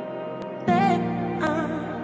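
Soft background music: a held chord, with a wavering melody note coming in about two-thirds of a second in and another about a second and a half in.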